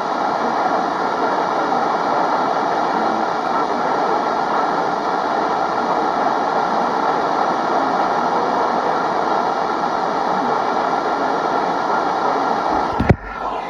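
Steady radio static, ending in a sharp click near the end.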